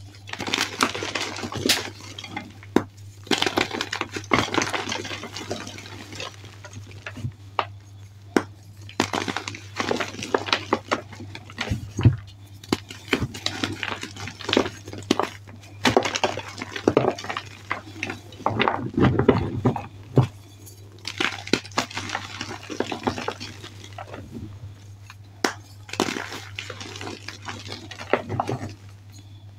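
Blocks of reformed and fresh gym chalk crushed and crumbled by hand into loose chalk powder: dry crunching and crackling with sharp snaps, in irregular bursts and short pauses. A faint steady low hum runs underneath.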